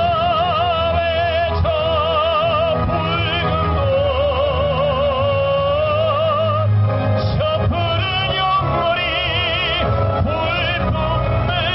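Male tenor singing in an operatic style into a microphone, long held notes with wide vibrato, over amplified instrumental accompaniment.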